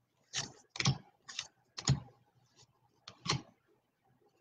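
Trading cards being flipped off a pack one at a time, making about six short, dry swishes and clicks at uneven intervals.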